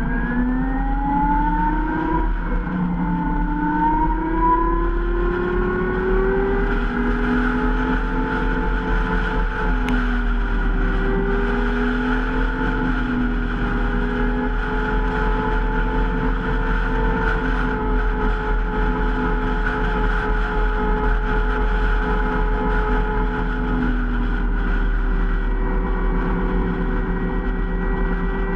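Zero SR electric motorcycle's motor whining while riding. The whine rises in pitch over the first few seconds as the bike speeds up, then holds fairly steady at cruising speed with small wavers, over a steady rush of wind and road noise.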